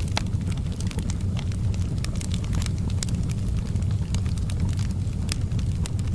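Wood fire in a fireplace crackling, with irregular sharp pops and snaps over a steady low rumble.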